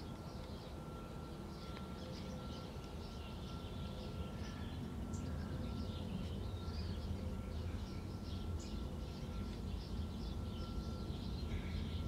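Faint background ambience: a low rumble and a thin steady high tone, with scattered short high chirps throughout.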